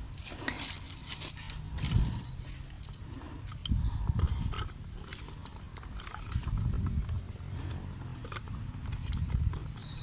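Sticks of firewood being fed into a clay charcoal stove under a metal pot: irregular clicks, knocks and scrapes of wood on wood and on the stove.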